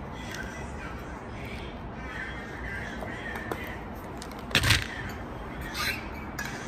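Plastic supplement tub and drink bottle handled and opened, with a sharp, harsh clatter about four and a half seconds in.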